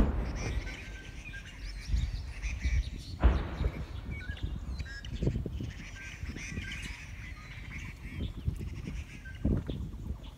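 Many small birds chirping and calling from the trees, with low rumbling on the microphone and a sharp bump about three seconds in.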